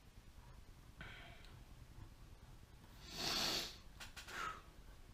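A man's loud breath through the nose about three seconds in, lasting under a second, followed by a softer breath.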